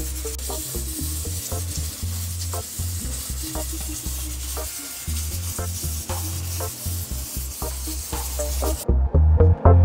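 Pot of water at a rolling boil, a steady hiss of bubbling, under background music with a bass line. About nine seconds in the boiling sound cuts off and the music gets louder.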